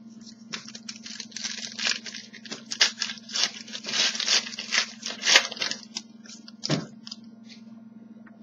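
Trading-card pack's foil wrapper being torn open and crinkled: a run of crackling rips and rustles for about five seconds, then a single light knock.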